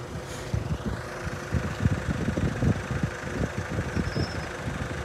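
Low, uneven engine rumble of road vehicles idling while they wait at a level crossing.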